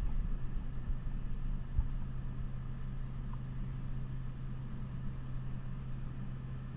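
Steady low hum of refrigeration machinery in a dairy cooler, with faint rustling and a light knock from paper-pulp egg cartons being handled.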